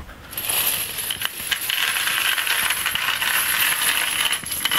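Spent brass and nickel pistol cartridge cases, freshly wet-cleaned, tipped out of a bowl onto a paper towel: a continuous rush of metallic clinking and jingling as the cases tumble against each other, starting a moment in.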